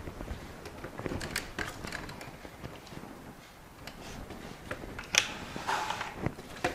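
Handling noise: scattered light clicks and knocks, with a short rustle about five seconds in and another just after.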